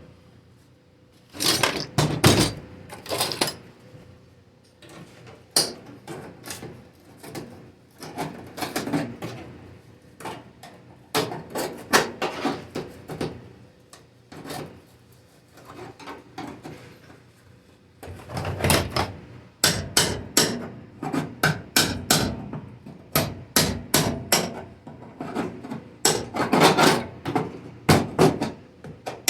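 Hammer blows on the sheet-steel floor panel of a 1980 Jeep CJ7, struck in irregular runs with short pauses between, the blows coming thicker toward the end.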